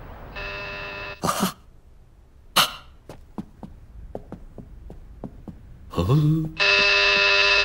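Electric door buzzer sounds for about a second, and near the end it sounds again, louder. In between, a short grunt or two and a quick run of footsteps, about four a second, clattering down the stairs.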